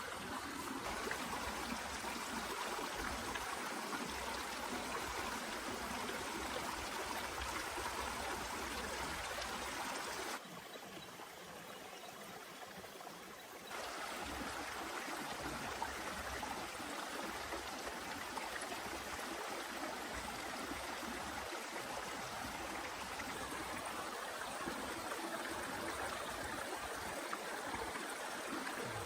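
Steady rushing noise of heavy rain and running water. It drops quieter for about three seconds around the middle, then comes back at the same level.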